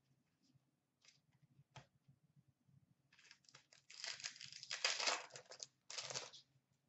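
A trading-card pack's wrapper being torn open and crinkled. Faint taps of cards come first, then a crinkling, tearing rustle starts about three seconds in and lasts about three seconds.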